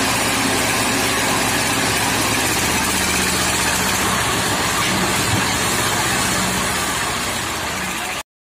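HMT 1811 18 hp tractor's diesel engine running steadily, then cutting off suddenly near the end.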